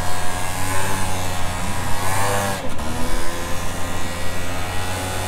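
A motor vehicle engine running loudly and steadily. Its pitch swells up and drops back about two seconds in.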